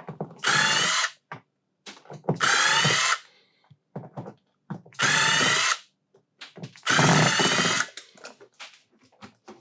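Power drill running in four short bursts of about a second each, backing out screws from the cabinet fixtures being torn out.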